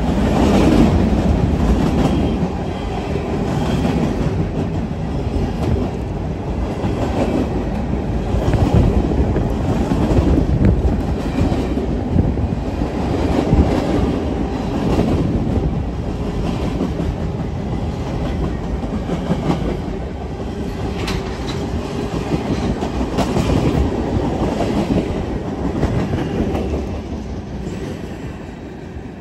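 Freight train cars rolling past close by: a steady rumble of wheels on rail with repeated clicking over the rail joints, fading away near the end as the last car goes by.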